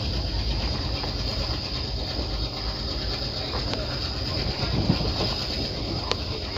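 Passenger train running along the track: a steady rumble of the wheels and carriages, with a few sharp clicks about a second apart in the second half.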